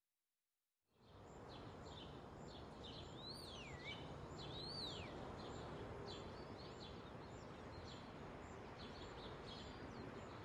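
Outdoor ambience fading in after a second of silence: a steady background hiss with birds calling. Two clear whistled calls rise and then fall, about three and four and a half seconds in, over many short chirps throughout.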